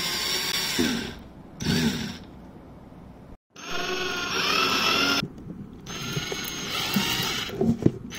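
Black+Decker cordless drill driver whining in several short bursts with pauses between them. It turns a screw under a drawer through a flexible extension shaft, and its pitch rises and falls as it runs.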